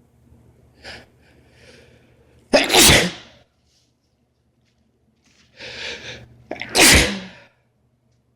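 A man sneezing twice during a sneezing fit, each loud sneeze preceded by a quick breath in; the two sneezes come about four seconds apart.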